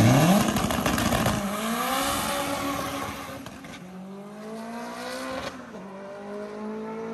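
Turbocharged K24-swapped Honda Civic launching down a drag strip at full throttle. The engine note climbs steeply off the line, then rises and drops back at each gear change, fading as the car pulls away.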